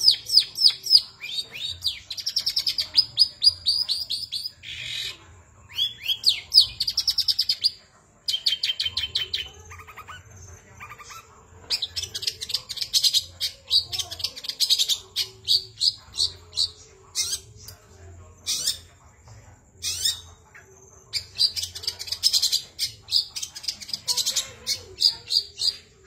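Long-tailed shrike (cendet) singing in full voice: long runs of fast, high repeated notes, many to the second, in bursts with short pauses between. The song quiets for a few seconds around eight to eleven seconds in.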